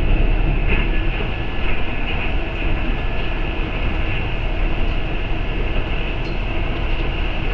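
Inside a moving city bus: steady engine and road rumble from the bus, with a faint steady whine above it.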